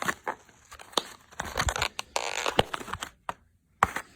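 Packaging being opened and handled: plastic crinkling and rustling with sharp clicks and knocks, going quiet briefly near the end.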